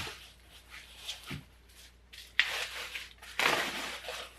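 Bubble wrap and plastic packing rustling and crinkling in two bursts about a second apart, as parts are handled inside a cardboard box.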